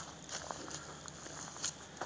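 Footsteps in dry grass: a few short crunches over a steady hiss.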